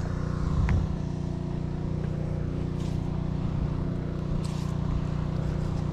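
A steady low motor drone that runs on evenly, with a brief louder bump under a second in.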